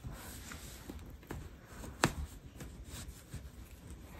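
Soft rubbing and rustling of stretchy jersey-fabric giant tube yarn as fingers tuck the emptied yarn tail through the stitches, with a few faint ticks and one sharp click about two seconds in.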